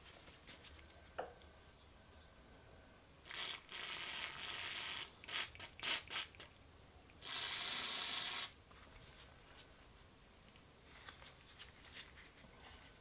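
Aerosol spray can fired through a thin straw nozzle into a rusty revolver's action: a hiss of about a second and a half, a few short spurts, then a second hiss of just over a second. A small metallic click comes about a second in, and light handling ticks come near the end.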